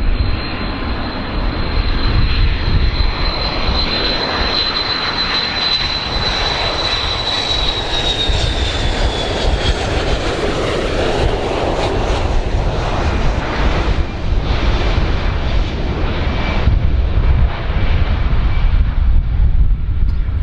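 Boeing 727's three rear-mounted Pratt & Whitney JT8D turbofans on final approach, passing close by: a steady high engine whine that drops in pitch as the jet goes past, under a loud rushing jet noise.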